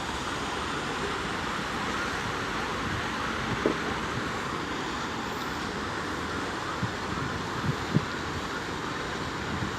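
Steady, even background noise of the kind made by distant traffic or wind on an outdoor microphone, with a few brief, faint low knocks.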